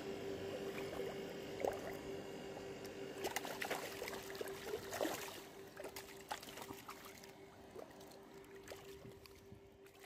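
Hooked tilapia thrashing and splashing at the water's surface as it is hauled in on a handline, the splashes thickest in the middle and fading toward the end, over a steady faint hum.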